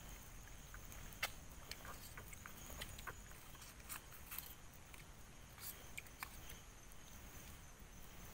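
Faint, irregular sharp clicks and crackles, a few each second, with one louder click a little over a second in. They come from a wood campfire crackling and spoons tapping on tin food containers.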